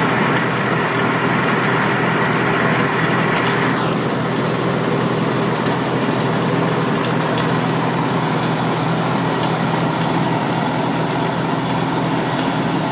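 Farmall Super M tractor's four-cylinder engine running steadily at low speed.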